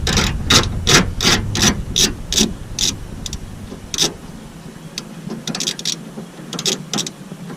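Ratchet wrench on a long extension clicking in quick, evenly spaced strokes, about three a second, as a 10 mm bolt is loosened. After about three seconds the clicking thins out to a few scattered clicks.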